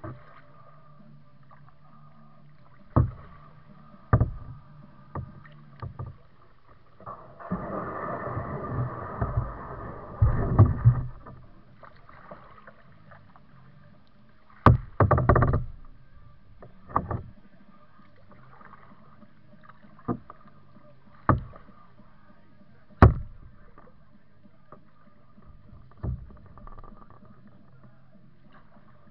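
Kayak paddling: irregular sharp paddle splashes and knocks every second or two, with a longer spell of splashing about eight to eleven seconds in.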